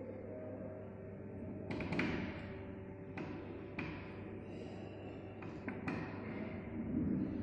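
A few light knocks and clicks, from handling the table-fan coil on its winding former while tying it off, over a steady low hum.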